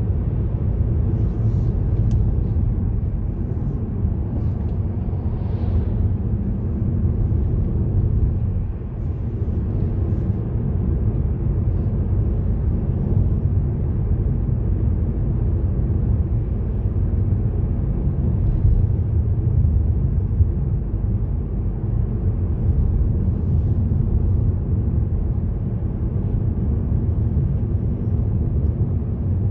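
A car driving at a steady speed: an even, low rumble of tyres on the road and engine, with a few faint ticks in the first few seconds.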